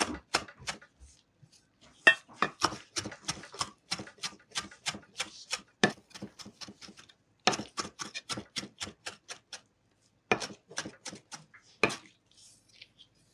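Large kitchen knife rapidly chopping fresh parsley on a wooden cutting board, the blade knocking the board about five times a second in runs with short pauses; it stops near the end.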